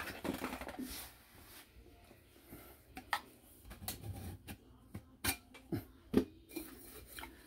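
Metal stove parts being handled: a few light clicks and knocks with quiet gaps between them.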